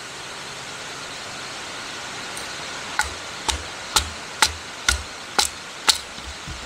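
A hatchet being batoned through a stick of wood with a log: seven sharp wooden knocks, about two a second, starting a few seconds in, as the kindling is split. A steady rushing noise lies underneath.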